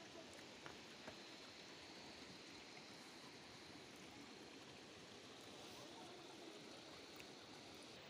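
Faint, steady running water from a pipe pouring into a basin and a small concrete water channel, with a couple of tiny clicks about a second in.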